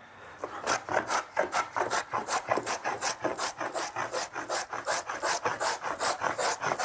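Scrub plane cutting a wooden board in fast, short, even strokes, about five a second, each one taking off a thick shaving; the strokes start about half a second in.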